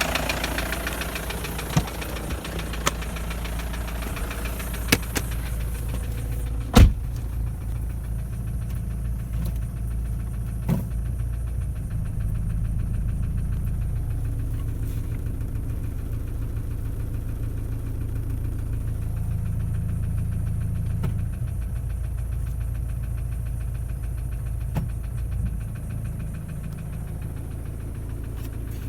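Toyota 1KD-FTV four-cylinder turbodiesel running steadily with a repetitive knock. The owner is hunting for its cause: it was suspected as injectors, was not cured by replacing them, and specialists blame scoring in the third cylinder. A few sharp clicks sound over it, the loudest about seven seconds in.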